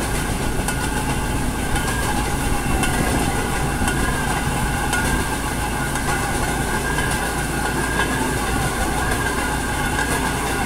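Narrow-gauge rail vehicle running steadily along the track, its wheels rolling on the rails with scattered clicks over the joints and a wavering high whine running through the noise.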